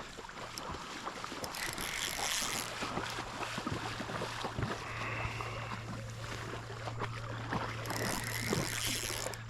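Running river water and wind noise on the microphone, with scattered light clicks and knocks.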